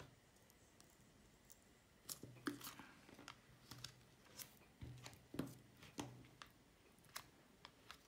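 Thin plastic protective liner, just peeled off a hydrogel screen protector with a card, crinkling and clicking as it is handled. The light crackles and taps start about two seconds in and come in an irregular cluster until near the end.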